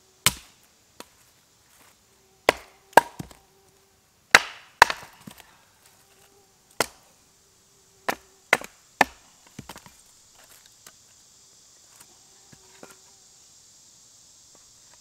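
Hatchet chopping into a small upright log to split it into smaller pieces: about nine sharp wooden strikes over the first ten seconds, some coming in quick pairs, then only a few faint knocks.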